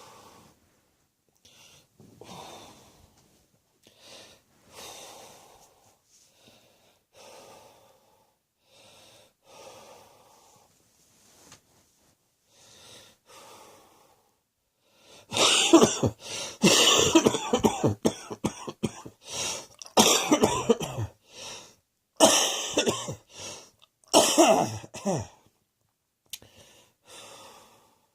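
A person coughing: soft short breaths and sounds about once a second at first, then from about halfway a run of loud, hard coughing fits in several bursts, easing back to soft breaths near the end.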